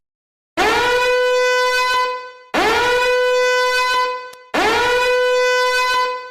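A meme sound effect of a horn giving three long, identical blasts, each sliding up into the same steady note and held for about two seconds.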